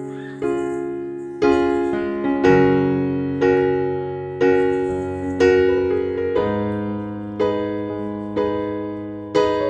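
Background piano music: slow, gentle chords struck about once a second, each left to ring and fade.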